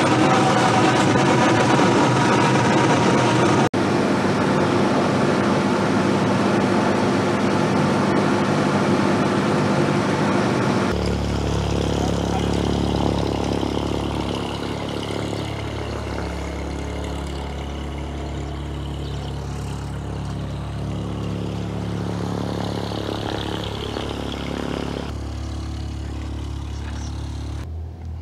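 Diesel engine and propeller of a Cessna 172 running. About eleven seconds in it drops to quieter, steadier running.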